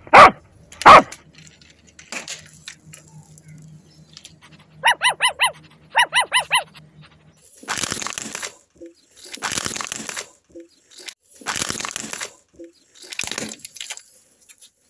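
Three loud sharp knocks in the first second, then a battery-powered toy dog's electronic bark: two runs of four quick, evenly spaced barks about a second apart. After that come four rough noise bursts, each about a second long, as car tyres roll over and crush plastic toys.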